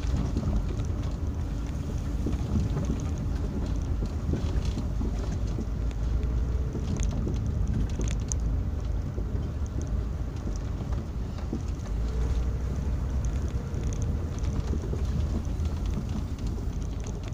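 Hyundai Santa Fe heard from inside the cabin while driving along a rutted dirt track: a steady low rumble of engine and tyres, with many small knocks and rattles as the body and suspension take the bumps.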